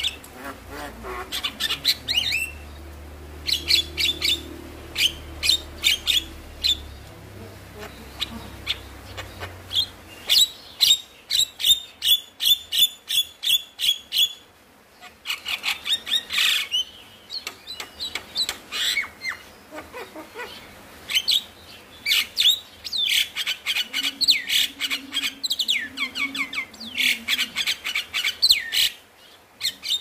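Javan myna singing: long runs of rapid, sharp chattering notes broken by brief pauses.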